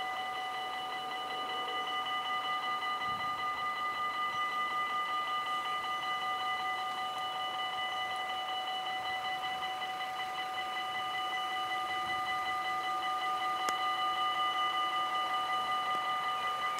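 Railway level-crossing warning bell ringing steadily in quick, even strokes of a few per second, warning that a train is approaching.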